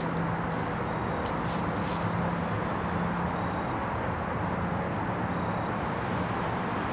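Steady road traffic noise: an even rushing hiss with a faint low engine hum under it.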